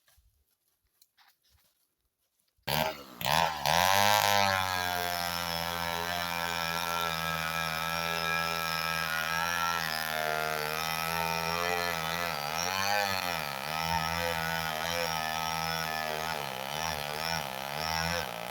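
Near silence for nearly three seconds, then a chainsaw comes in suddenly and runs at high revs under load. Its pitch sags and recovers several times as the chain bites into the wood.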